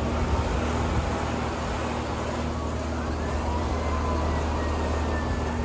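A distant siren comes in faintly about halfway through, its pitch slowly rising, over a steady low outdoor hum of running condenser units and traffic.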